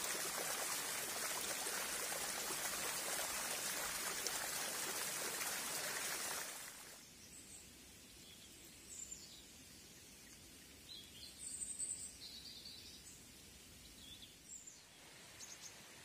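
Steady rush of a muddy stream's running water for about seven seconds, then it cuts off abruptly to a quiet background with a few short, high bird chirps scattered through the rest.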